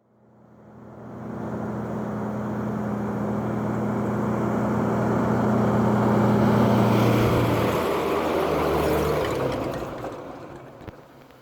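A steady engine-like drone that fades in over the first second or two, builds, then dies away about ten seconds in.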